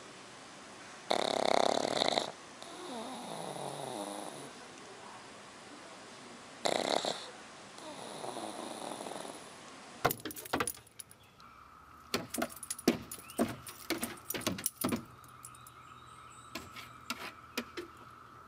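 Black pug snoring in its sleep: two loud snorts about five seconds apart, each followed by a softer, whistling breath. About ten seconds in it gives way to a quick run of sharp clicks and knocks as a dog scrabbles at a cicada on wooden decking, with a steady high tone underneath.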